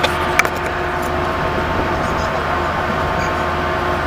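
Steady mechanical drone of a ship's engines and machinery, with a few steady humming tones over the noise. Two short sharp knocks come within the first half second.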